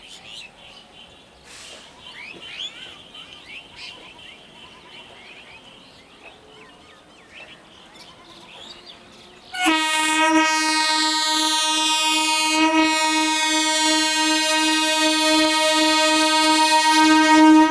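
Indian Railways ICF-built EMU local train approaching: a quiet stretch with faint chirps and a faint rising hum, then about halfway in the train's horn sounds one long, steady blast that is held to the end and is by far the loudest sound.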